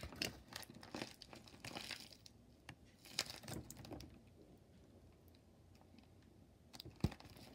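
Homemade paper squishy stuffed with plastic shopping bags being squeezed in the hands: faint crinkling and crackling of paper and plastic, busiest in the first four seconds, then quieter, with one sharp click near the end.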